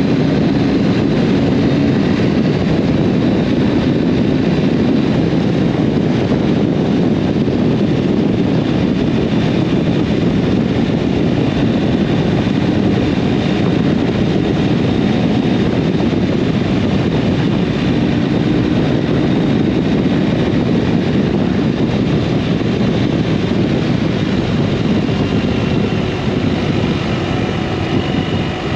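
Heavy wind noise rushing over the camera microphone of a BMW R1250RS motorcycle riding at speed, with the bike's boxer-twin engine running underneath. The rush is steady and eases slightly near the end.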